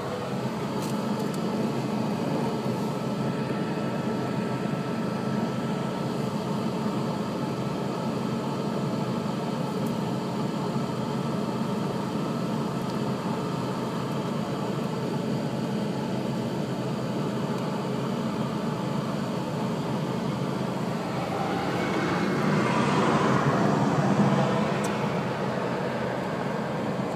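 Steady drone of a small aircraft's idling engine heard inside its cabin, with a broad rush of jet noise swelling for a few seconds late on as a McDonnell Douglas DC-10 airliner rolls past on its landing run.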